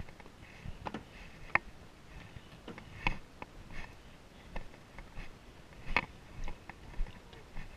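Footsteps on a wooden boardwalk while walking, irregular knocks about every half second.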